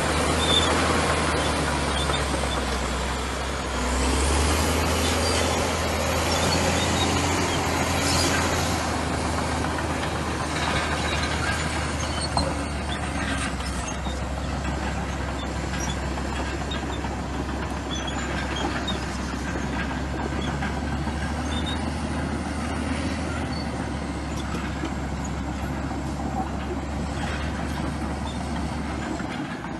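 Komatsu bulldozer's diesel engine running steadily with a deep drone, with scattered short high-pitched squeaks as the machine works. The engine gets a little louder about four seconds in, then eases back.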